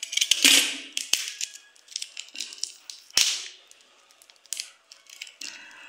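Small clear plastic bag being handled and crinkled while it is opened, with a few sharp clicks and cracks; the loudest crack comes about three seconds in.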